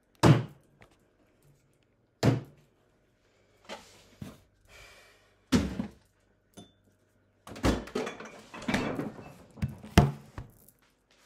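Knocks and thumps of bottles and containers being handled in an open refrigerator, about six separate hits, with a stretch of rustling and clatter in the second half.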